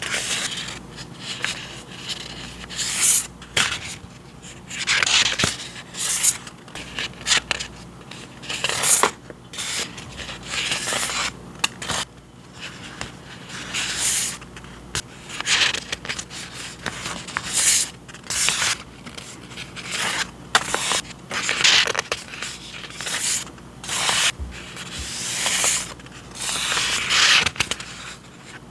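Paper and packaging handled close to the microphone: many short, irregular rustles and scrapes.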